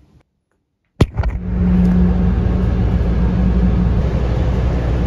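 Inside a moving city bus: a loud, steady engine and road rumble with a low hum, starting abruptly about a second in after a moment of silence.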